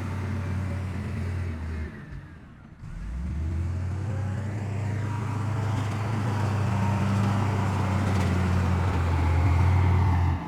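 Heavy earthmoving machine's diesel engine running with a steady low drone. It drops away briefly about two seconds in, then returns and grows gradually louder before cutting off abruptly near the end.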